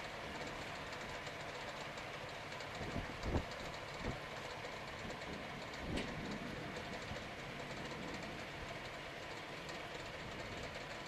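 Steady rushing of wind across the microphone in the open, with a few low thumps about three, four and six seconds in.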